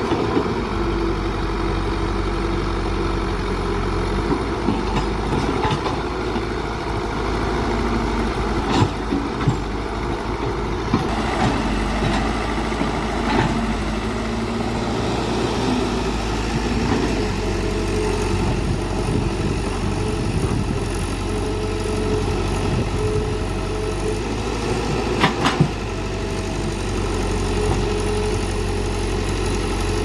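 Caterpillar E120B excavator's diesel engine running steadily while it digs, its note shifting now and then. There are a few sharp clanks, two close together about nine seconds in and one about twenty-five seconds in.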